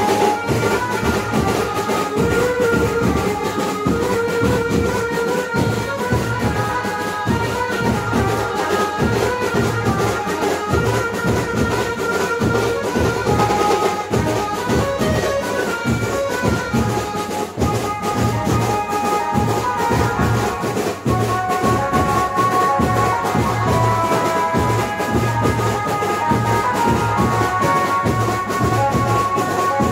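Brass band playing a dance tune: brass horns carrying the melody over a steady beat of drums.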